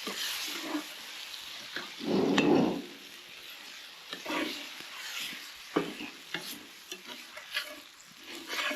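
A utensil scraping and stirring meat in a pan over a campfire, with a light sizzle of frying. The pan is not hot enough to crisp the meat. There are irregular scrapes throughout and a louder, lower rumble about two seconds in.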